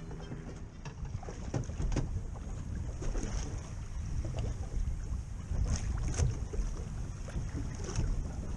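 Wind buffeting the microphone on a small boat at sea, over water lapping and slapping against the hull, with irregular knocks.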